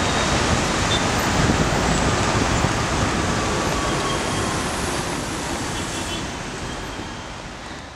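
Steady noise of heavy road traffic on a congested multi-lane road, fading out over the last few seconds.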